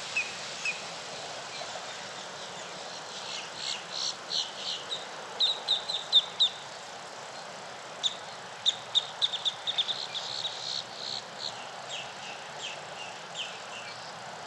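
Songbirds chirping at dawn: phrases of short, high notes in quick runs over a steady faint hiss, loudest about halfway through.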